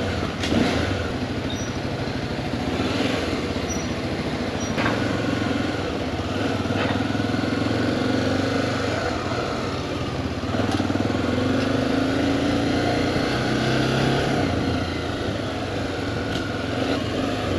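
Motorcycle engine running at low speed, its pitch rising and falling gently as it speeds up and slows, with a few short sharp clicks.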